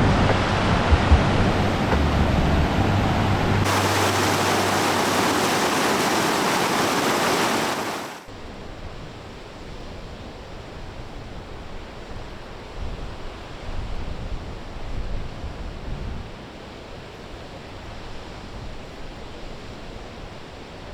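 Steady outdoor rushing noise with a rumble underneath. It changes abruptly about four seconds in, turning brighter and losing the rumble, then drops to a much quieter hiss a few seconds later.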